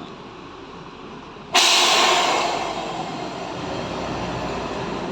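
A sudden loud hiss of compressed air from a bus's pneumatic brakes about a second and a half in, fading over a couple of seconds, with a low engine rumble underneath.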